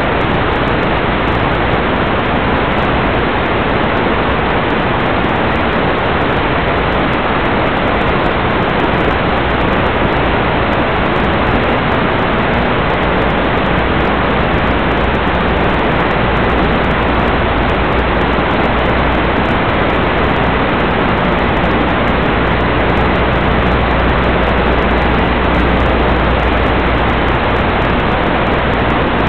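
Loud, steady hiss of radio static from the audio channel of an analog FPV video receiver, with no change throughout.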